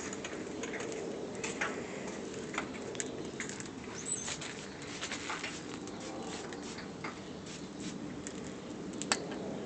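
Scattered light clicks, taps and scrapes of hand tools working on engine parts, over a steady low background hum.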